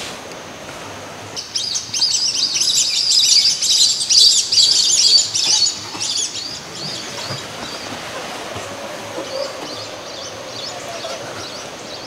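A large flock of white-collared swifts diving into the cave shaft to roost, a dense burst of high twittering chirps that starts about a second and a half in and is loudest for the next few seconds, then thins to scattered chirps.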